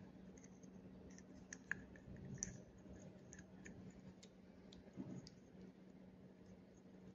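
Faint small clicks and taps of fingers handling a Storz Telecam endoscopy camera head's housing and cable connector, with a few sharper clicks about two seconds in and again about five seconds in, over a faint steady hum.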